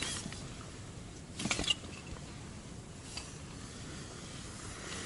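A brief rustle ending in a sharp click about one and a half seconds in, with a few faint ticks over quiet background hiss: handling noise from someone moving beside fishing tackle.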